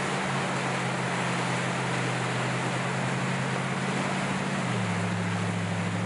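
Churning floodwater rushing past as a steady, even roar, with wind on the microphone. Under it run a few low, held music notes that step down in pitch near the end.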